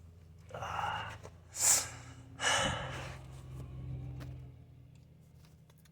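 A man breathing out heavily three times in quick succession, like sighs, over a low steady hum.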